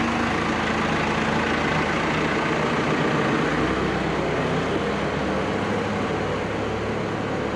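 Skid steer's engine running steadily, its pitch drifting up and down a little.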